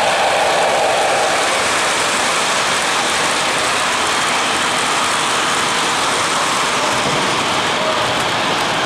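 Model train of loaded coal hoppers behind a Weaver Chessie U25B locomotive rolling past close by: a steady, dense rattle of small metal wheels on model track.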